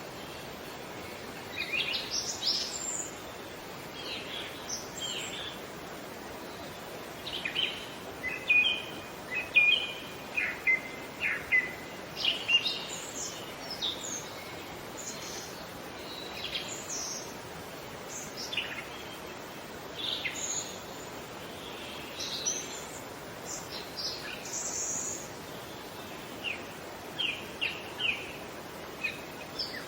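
Birds chirping and calling: short, high calls come irregularly, busiest in the first half, over a steady background hiss.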